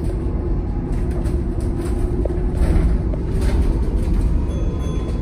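BYD Alexander Dennis Enviro200EV electric single-deck bus on the move, heard from inside: a steady low road rumble with a faint steady hum and scattered light rattles.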